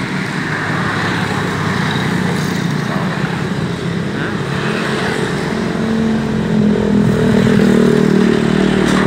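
Road traffic passing close by: motorcycle and car engines running, with one engine growing louder over the last few seconds.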